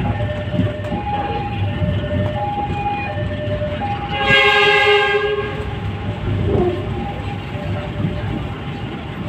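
Train running with a steady low rumble, heard from inside the carriage, while a level-crossing alarm sounds in two alternating tones. About four seconds in, the train's horn blows once for about a second, the loudest sound.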